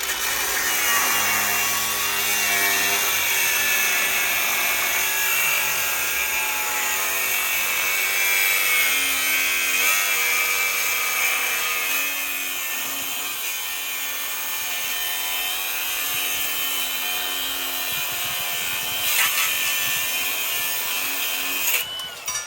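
A power tool working metal on the exhaust hangers: a steady hiss with a faint wavering whine for about twenty seconds, cutting off abruptly near the end.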